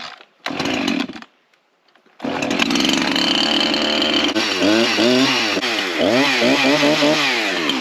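A two-stroke chainsaw is started: two brief sputters, then the engine catches about two seconds in and runs. It is then revved up and down several times before cutting off near the end.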